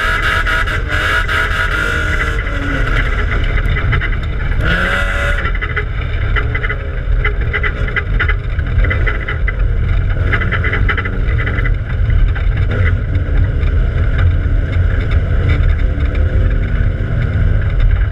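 Race car engine heard from inside its stripped, roll-caged cabin on a dirt track, running with its pitch rising and falling as the revs change. Hissy rattling noise rides over it for the first five seconds or so; after that a deep engine rumble carries on.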